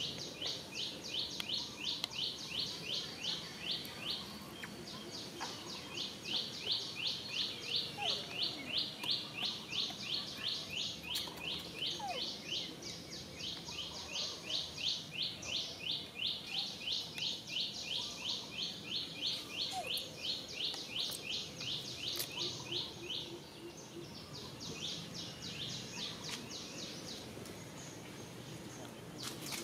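Outdoor ambience with long runs of high, rapid chirps, about four or five a second, lasting several seconds each with short breaks between.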